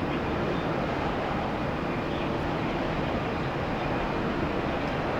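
Airbus A330 jet engines heard as a steady, even rushing noise as the airliner comes in to land.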